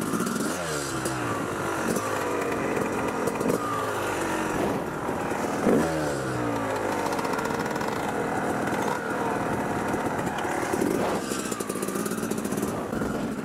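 Yamaha YZ250 two-stroke dirt bike engine, heard from the rider's helmet, revving up and dropping back again and again as it rides through the gears, with a sharp rev spike about six seconds in.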